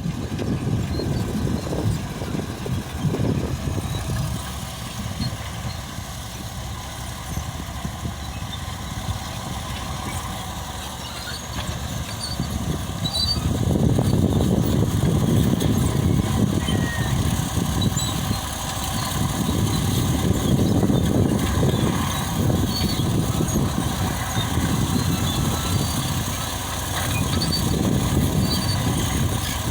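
Caterpillar D8 bulldozer's diesel engine working with a heavy, low rumble. It eases off for several seconds, then grows louder about halfway through and stays strong, rising and falling a little as the dozer pushes dirt.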